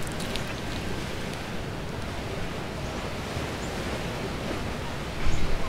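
Steady rushing noise of wind on the microphone, unsteady in the lowest range, with a brief louder burst near the end.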